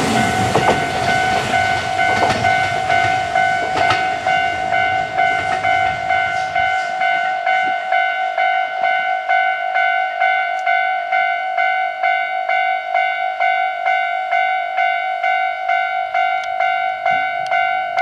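Japanese railway level-crossing warning bell ringing in a quick, even, repeating ding. Under it, a Kintetsu express train rumbles past on the track, and its rumble dies away about seven seconds in.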